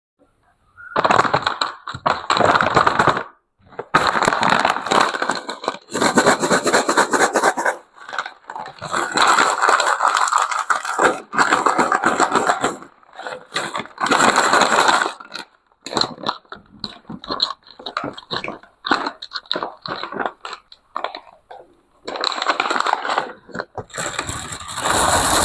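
Close-miked crunching and crackling of candy for ASMR, in bursts of one to four seconds with short pauses, and sparser scattered clicks in the middle.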